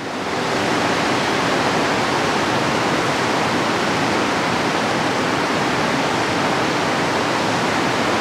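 Steady rush of turbulent water pouring through a dam spillway.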